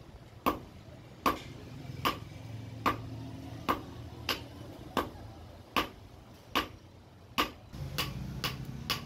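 Hand hammer striking a red-hot steel bolt on a steel anvil block, forging it flat into a small knife blade: sharp metallic blows at about one a second, quickening to about two a second near the end.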